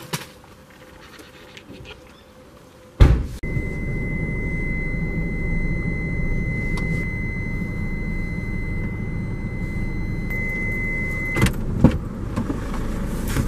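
Hyundai van's engine and road noise heard from inside the cabin while driving: a steady low rumble that starts with a sharp click about three seconds in. A thin, steady high tone runs over it for most of its length, and a couple of clicks come near the end.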